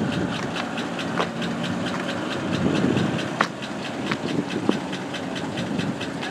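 Engine idling steadily, with a fast regular ticking about four times a second and a few sharp knocks.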